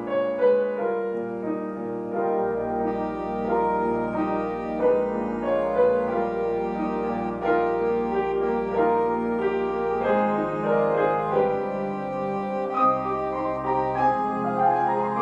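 Church organ playing sustained chords over long held bass notes.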